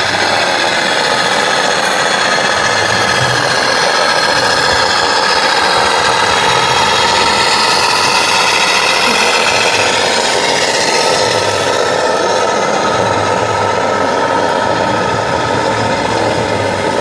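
Buzzy, rattling diesel-engine sound from a radio-controlled scale model truck's sound module, running steadily under the general noise of the exhibition hall.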